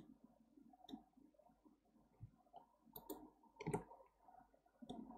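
Faint computer mouse clicks, about half a dozen sharp ticks at irregular spacing over near-silent room tone.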